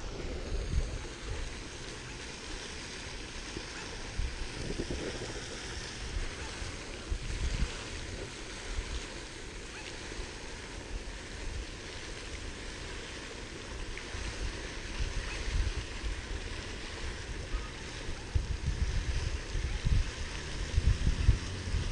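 Steady rush of splashing water from a pond fountain, with irregular gusts of wind rumbling on the microphone.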